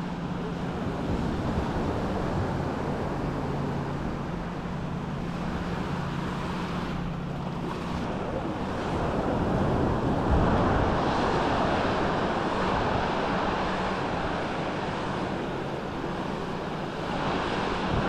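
Small sea waves washing onto a sandy beach, with wind on the microphone. It grows louder about halfway through. A faint steady low hum sits underneath in the first half.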